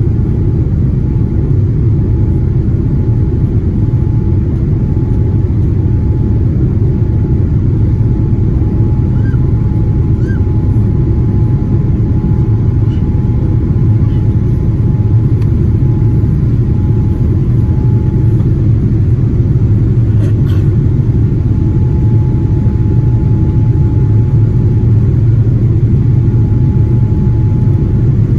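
Steady low roar of a Boeing 787-9's cabin during the climb after takeoff: its Rolls-Royce Trent 1000 engines and airflow over the fuselage heard from a window seat over the wing, with a faint high steady tone running through it.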